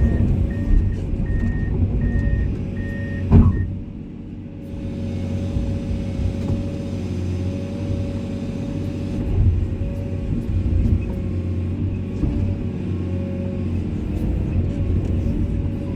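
Komatsu excavator running under work, its engine rumbling steadily with a held whine over it. An alarm beeps evenly for the first three seconds or so, a single loud clunk comes a little over three seconds in, and the engine drops briefly before picking back up.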